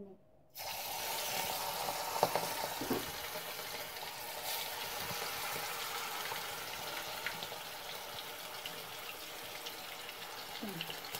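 Marinated chicken pieces going into hot oil, which starts sizzling suddenly about half a second in. The sizzle then runs steadily, with scattered small pops and crackles.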